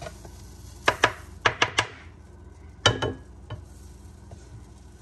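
Sharp taps and clicks of a utensil scooping butter spread out of a plastic tub and knocking it into a frying pan: a quick run of about five taps about a second in, then two more near three seconds.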